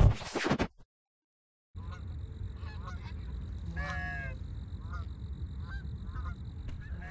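Canada geese honking, several separate calls with the loudest about four seconds in, over a low steady wind rumble. A loud burst right at the start cuts off into about a second of silence before the calls begin.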